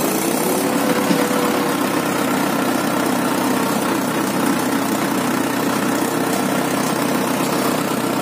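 Farm tractor's diesel engine running steadily while it drives slowly, its pitch rising a little just after the start and then holding even.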